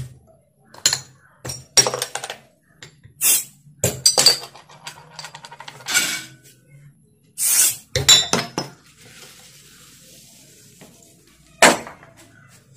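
A metal bottle opener clinking against glass soda bottles as their crown caps are pried off one after another, several openings marked by a short hiss of escaping gas. Later comes a faint fizzing of the carbonated soda, then one more sharp clink near the end.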